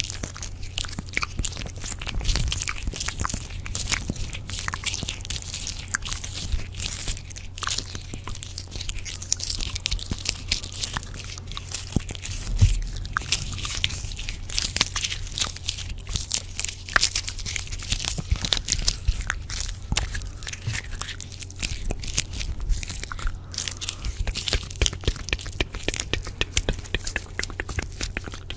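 Layered close-microphone ASMR trigger sounds: a dense, irregular run of crisp crackling and crunching clicks over a low steady hum.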